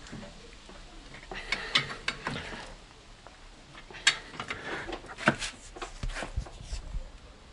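Irregular metallic clicks and knocks from a wrench with a pipe extension on a car's front hub nut as the nut is forced through its angle-tightening. The sharpest clicks come about four and five seconds in.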